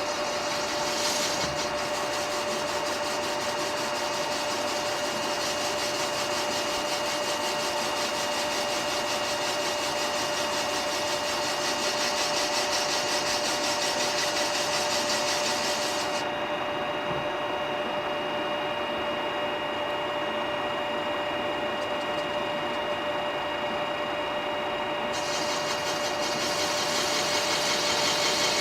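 Steady machine running noise with constant whining tones throughout, no change in speed.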